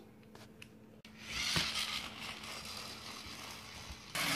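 Road Ripper Rev Up Monster toy monster truck's push-powered motor whirring as it runs across a hardwood floor. The rasp starts about a second in, eases off, then comes back louder near the end.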